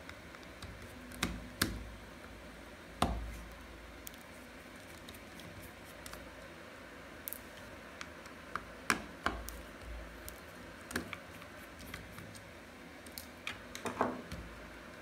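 Scattered light clicks and taps of a small screwdriver on the screws and metal of a hard drive's circuit board as the screws are taken out and the board is handled, with a few louder knocks.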